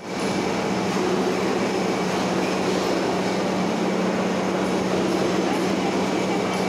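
Steady workshop machinery drone with a constant low hum and a faint high whine, unchanging throughout.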